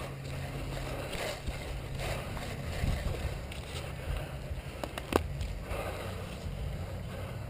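Rustling and shuffling movement through woodland brush, with a few sharp clicks about five seconds in, the loudest a single crack.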